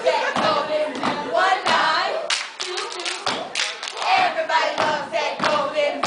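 A step team stepping: rhythmic stomps and hand claps on a stage floor, with voices chanting over the beat.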